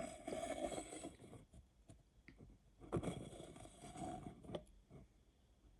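Handling noise: rustling and scraping in two bursts of about a second each, one at the start and one about three seconds in, with a few light clicks between.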